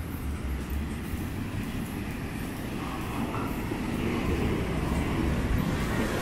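Ocean surf breaking on the shore, a steady rush of noise, with wind rumbling on the microphone. It grows louder about four seconds in.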